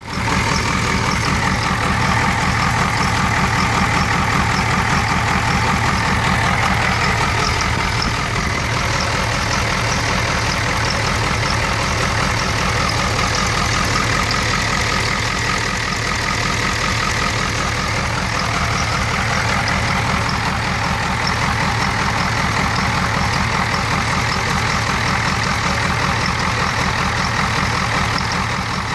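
1994 Ford 7.3 IDI V8 diesel engine idling roughly with a steady, even pulsing. The owner says it runs rough at idle but normally under throttle.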